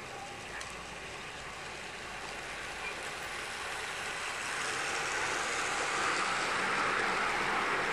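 Bachmann OO gauge model train running on garden railway track, a steady whirring rush of motor and wheels on rails that grows gradually louder as it approaches.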